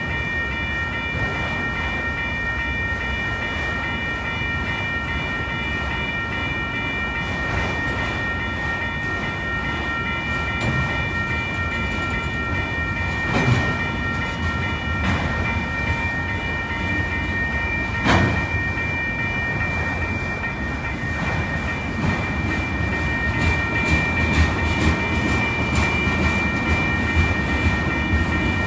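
Long autorack freight train rolling through a grade crossing: a steady rumble with sharp wheel clacks, loudest about 13 and 18 seconds in and coming quicker near the end. Under it the crossing bells ring continuously.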